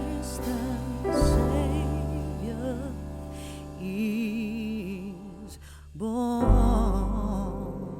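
Background music: a slow, gentle song with a vibrato-laden singing voice over held chords, dipping briefly about six seconds in before swelling again.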